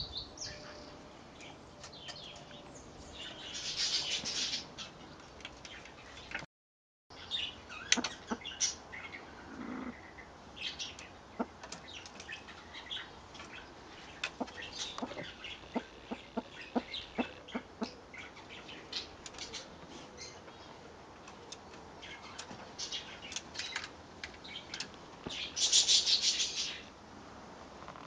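Birds calling: scattered short chips and clicks, with a bright buzzy trill about three seconds in and another near the end.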